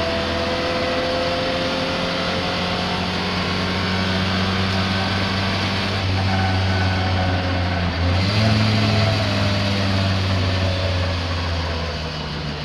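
Misfiring racing car engine running steadily under load, its note stepping up in pitch about eight seconds in.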